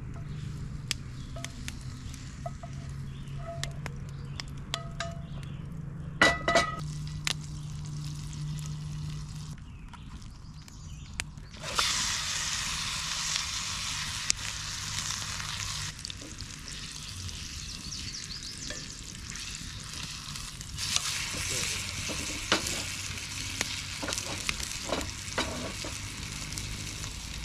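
Chicken sizzling as it goes into a hot, buttered cast-iron skillet: the sizzle starts suddenly about halfway through, eases a few seconds later, then rises again. Earlier come scattered clicks and a sharp metal clink of a utensil on the pan.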